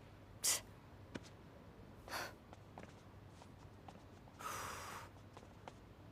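Faint, short breath sounds, three times, the last one longer like a sigh, with a few light clicks in between.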